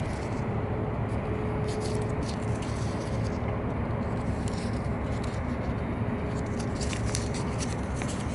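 A sheet of white paper crackling and rustling as fingers fold and crease it into an origami shape, in short clusters of crisp crinkles about two, five and seven seconds in, over a steady low rumble.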